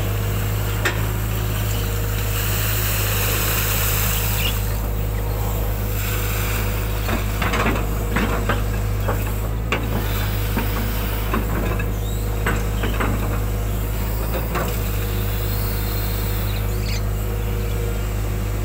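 Hitachi hydraulic excavator's diesel engine running steadily, heard from the cab, with scattered knocks and scrapes as the machine and its bucket work through the mud.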